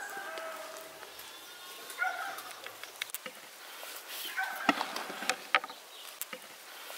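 Chickens clucking in short calls, with a few sharp clicks about two-thirds of the way through.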